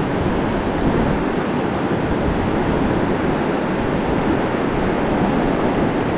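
Mountain trout river rushing over rocks: a steady, unbroken rush of flowing water.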